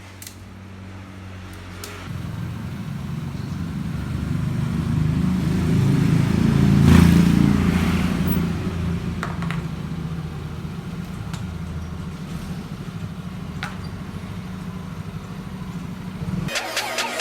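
Motor vehicle engine running as the vehicle approaches and passes, the rumble growing louder to a peak about seven seconds in, then easing off; it cuts off abruptly near the end.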